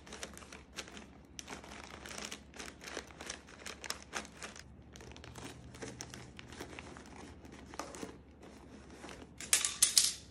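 Paper crinkling and rustling in irregular bursts as hands press and smooth paper and tape around a bottle wrapped in crumpled newspaper. A louder, sharper burst of paper noise near the end.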